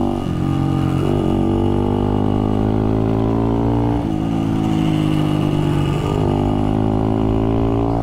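The 1965 Yamaha YG5 Trail Master's small two-stroke engine running under way, its pitch slowly falling. The sound breaks briefly about a second in and again about four seconds in, then picks up again.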